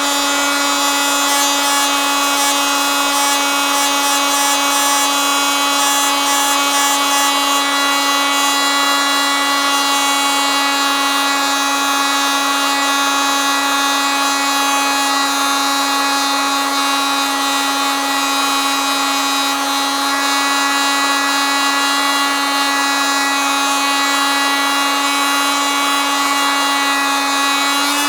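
Oscillating multitool running steadily, a continuous buzz held at one unchanging pitch.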